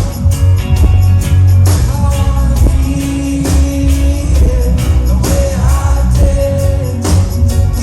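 Live reggae band performing: a heavy, steady bass line and regular drum hits under a sung melody.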